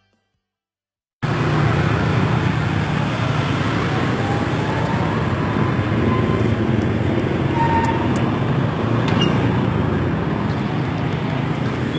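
Loud road traffic noise: vehicle engines and tyres running steadily, starting suddenly about a second in after silence.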